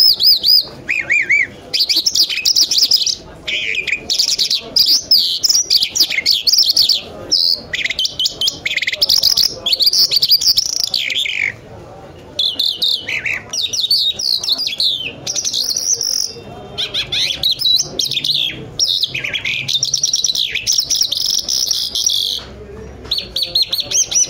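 Caged lark, kept as an 'Irani jal' songbird, singing a long run of rapid chirps, trills and whistled notes, broken by a few short pauses.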